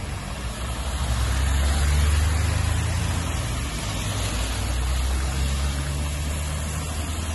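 Cars driving slowly along a flooded, rain-soaked street: engine hum with the hiss and splash of tyres through standing water. The engine sound is loudest about two seconds in, as a car passes close.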